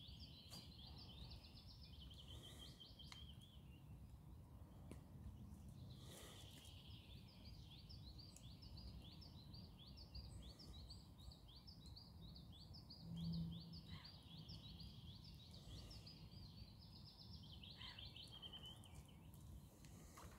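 Faint songbird song: long runs of rapid high chirps, pausing for a couple of seconds about four seconds in, over a low steady outdoor rumble. A brief low hum sounds about thirteen seconds in.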